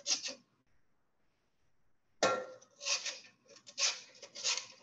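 A radish being drawn across the slicing blade of a metal box grater, a run of quick scraping strokes, about two a second, starting about two seconds in, each one shaving off a thin slice.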